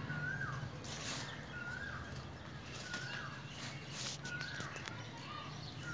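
A bird calling over and over, a short whistled note that drops in pitch about every second and a half, with a low steady hum behind and a few brief rustling noises.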